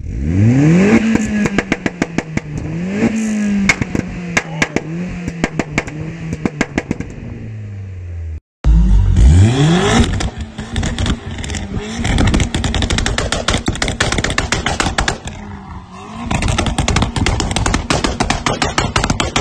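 Vauxhall Corsa VXR's 1.6 turbo four-cylinder with a loud modified exhaust, revved up twice and then popping and banging in rapid cracks as the revs fall. After a brief break, a second Corsa VXR revs once and crackles with dense rapid pops on the overrun.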